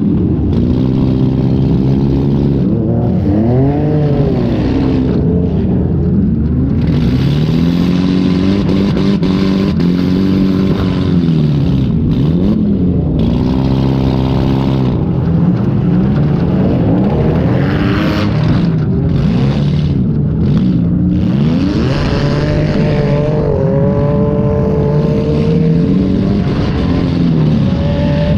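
Demolition derby car's engine, heard from inside the car, revving hard and easing off over and over, its pitch rising and falling every second or two.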